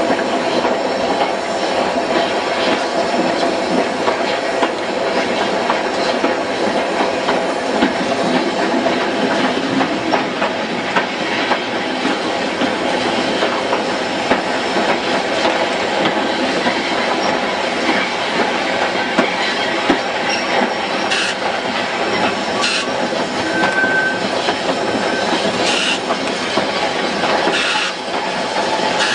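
Train running along the track: a steady, loud rumble and rattle of the moving train, with a few short, sharp high sounds in the last third.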